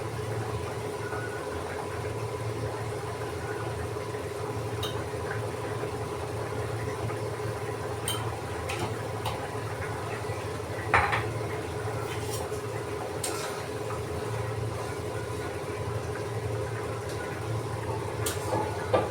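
A few sharp metal clinks of a utensil against a cooking pan over a steady background hum. The loudest clink comes about eleven seconds in.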